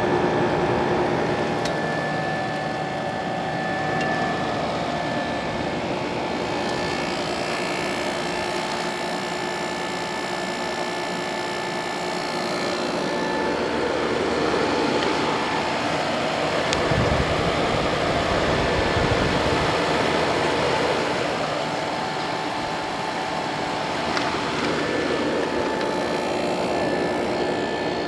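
Comfort-Aire 15,100 BTU window air conditioner running with its GMCC compressor and fan on low speed: a steady whir with a faint hum, a little louder in the middle. It runs smoothly and is cooling, in good working order.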